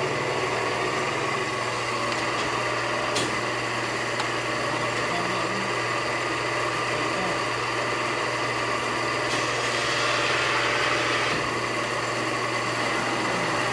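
1990 Pacific Tri-Arco 35-ton hydra-mechanical press brake running with a steady machine hum. A sharp click comes about three seconds in, and the sound grows louder for about two seconds near the ten-second mark.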